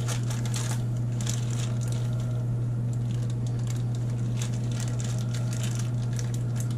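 Small plastic zip-top bag crinkling and crackling in irregular bursts as it is handled and opened by hand, over a steady low hum.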